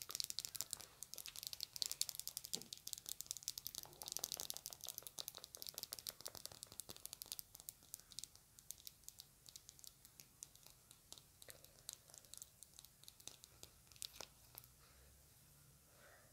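Long acrylic fingernails tapping and scratching fast on a small white plastic container: a dense run of light, crisp clicks that thins out to scattered single taps in the second half.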